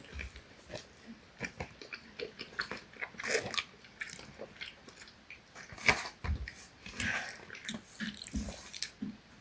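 People eating: irregular chewing and biting with scattered small clicks and knocks.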